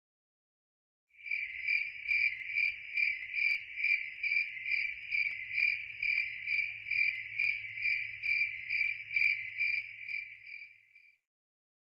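Crickets chirping, the familiar sound effect: a high, even chirp pulsing a little over twice a second. It starts after about a second of silence and stops shortly before the end.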